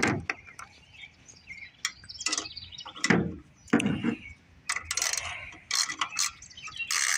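Hand tools working on a small Briggs & Stratton engine while its cover is being taken off: scattered metal clicks and a few clunks, with a ratchet wrench starting to click rapidly near the end.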